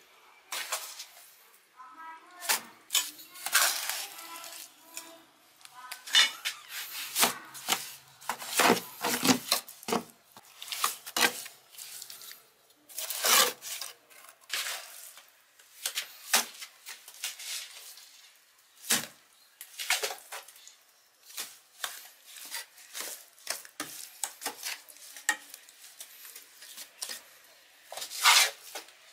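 Irregular clinks, knocks and scrapes of sheet-metal parts being handled and worked, with a few sharper, louder clanks among many lighter taps.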